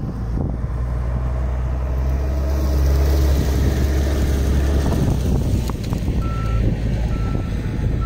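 Backhoe loader's diesel engine running with a steady low drone, and near the end its reversing alarm beeping about once a second.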